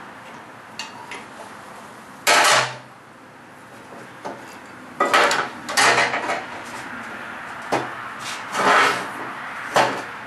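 Several short, loud bursts of metal noise from the steel pieces of a blacksmith's guillotine tool being worked, each a second or less: one about two seconds in, a cluster around five to six seconds, and more near nine and ten seconds.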